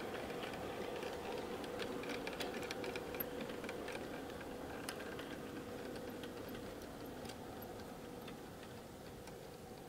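G-scale model train coaches rolling past, their wheels clicking irregularly over the track joints and points, over a steady motor hum. The hum slowly fades as the train moves on.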